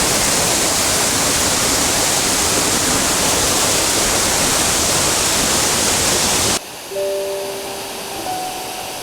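Dzhurynskyi waterfall: a steady, loud rush of falling water that cuts off abruptly about two-thirds of the way through. Soft music with long held notes follows.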